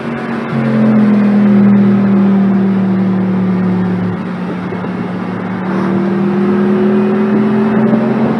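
Car engine held at high, steady revs for several seconds, its pitch drifting only slightly.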